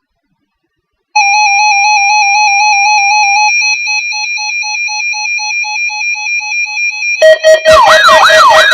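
Loud synthesized electronic tone, starting about a second in, steady with a fast warble. About halfway through, its lower pitch breaks into rapid beeps, about four a second. Near the end, sharp clicks cut in, followed by a harsh warbling, siren-like alarm.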